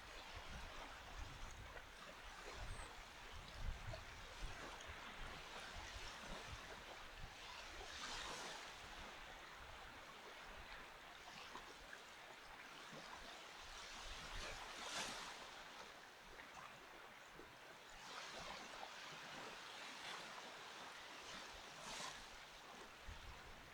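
Small waves washing onto a sandy beach: a soft steady hiss that swells with each wash every few seconds.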